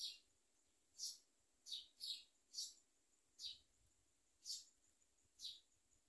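Nestling birds giving short, high begging chirps, roughly one a second, each falling in pitch.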